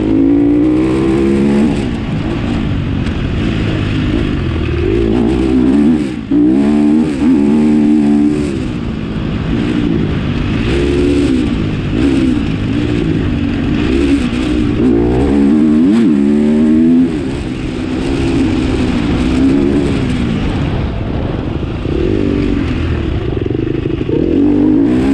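Vehicle engine revving up and down again and again, its pitch rising and falling every second or two, over a steady low rumble.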